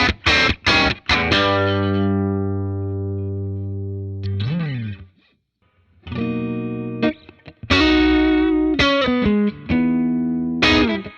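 Electric guitar played through a Dr. Z Maz 38 Senior Reverb 2x12 valve combo amp: a run of quick picked notes, then a chord left to ring out for about three seconds, a short sliding bend, a second's pause, and more picked notes and chords.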